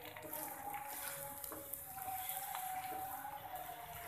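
Aloo paratha sizzling in ghee in a frying pan: a steady frying crackle with a few small pops, and a faint steady tone underneath.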